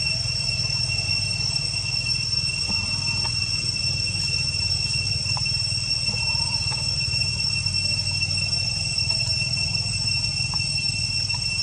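Insects droning steadily in the forest on one unbroken high pitch, over a constant low rumble, with a few faint short chirps.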